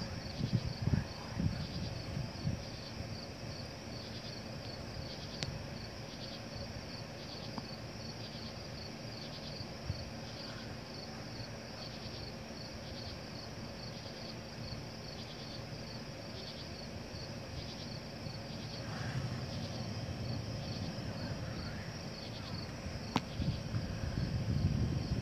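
Night insects chirping in a steady, even rhythm of short high pulses. A low rumble swells in the first couple of seconds and again near the end.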